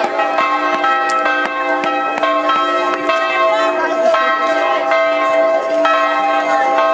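Bells ringing in a continuous peal: many strikes in quick succession, each tone ringing on into the next.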